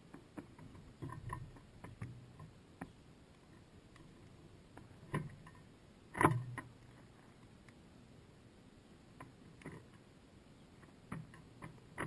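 Scattered faint clicks and knocks on the bird feeder, picked up by the camera inside it, with the loudest knock about six seconds in.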